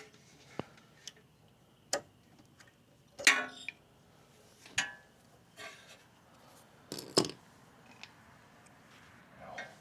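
Small metal parts of a motorcycle brake arm linkage, a washer and a cotter pin, clicking and clinking as they are handled and fitted: about eight irregular clicks, a couple of them with a brief metallic ring.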